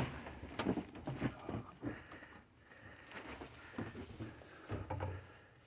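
Footsteps on wooden attic joists: scattered, irregular light knocks and shuffles as a person steps carefully from joist to joist.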